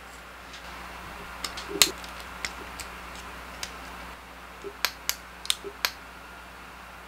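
Small sharp clicks and clacks of a Bandai Soul of Chogokin Daltanious figure's parts being handled and fitted: a cluster of about half a dozen clicks about a second and a half in, then another quick run of about five near the end.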